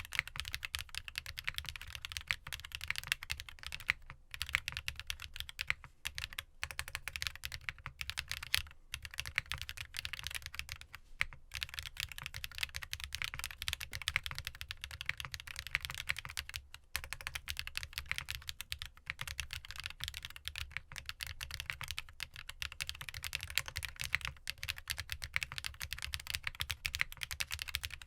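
Continuous fast typing on a GEON F1-8X mechanical keyboard with factory-lubed Sarokeys Strawberry Wine linear switches, an FR4 plate, a gasket mount, no foam and ABS double-shot keycaps. The keystrokes bottom out with a high-pitched clack, and the rapid clicking breaks off briefly a few times.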